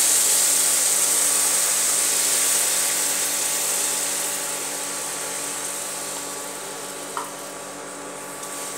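Water poured into hot ghee-roasted semolina in a pan, sizzling loudly at first and dying away over several seconds as the water takes up the heat. One light tap comes about seven seconds in.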